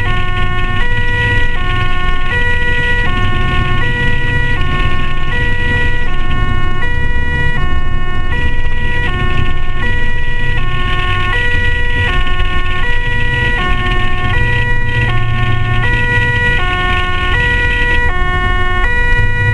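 German ambulance's two-tone siren (Martinshorn) sounding continuously, alternating between a high and a low tone, each held a little under a second. Heard from inside the cab over the low rumble of the engine and tyres.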